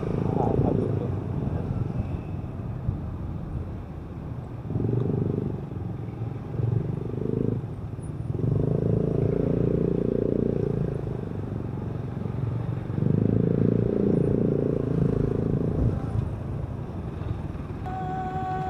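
Motorcycle ridden in slow traffic: engine and road noise that grows louder in three stretches of a few seconds each. Music fades in near the end.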